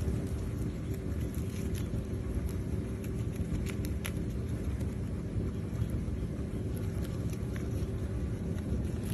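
Steady low rumble throughout, with faint, crisp clicks scattered over it from guinea pigs chewing lettuce and radicchio leaves.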